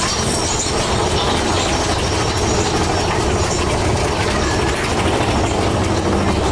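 Big Thunder Mountain Railroad mine-train roller coaster running along its track, heard from on board: a steady, loud rumble and rattle of the cars and wheels on the rails.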